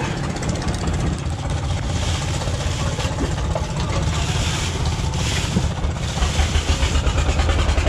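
A boat engine running steadily, a constant low rumble, with plastic bags and ice rustling as fish are handled in a cooler.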